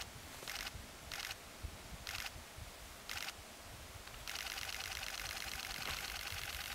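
Digital SLR camera shutter firing: five short bursts of clicks, roughly a second apart, then a continuous high-speed burst of rapid shutter clicks lasting about two and a half seconds, starting about four seconds in.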